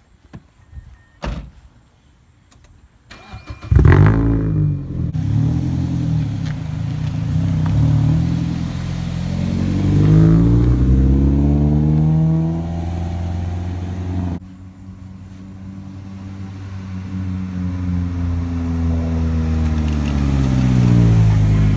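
Mazda Miata NC's four-cylinder engine started up about four seconds in after a couple of clicks, then revved up and down as the car pulls away and drives off. It drops away suddenly about two-thirds of the way through, then builds again with its pitch bending down near the end as the car goes by.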